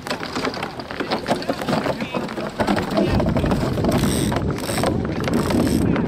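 DN iceboat's steel runners scraping over lake ice with a dense crackle of small clicks, swelling into a louder rumble and hiss from about halfway through as the boat picks up speed.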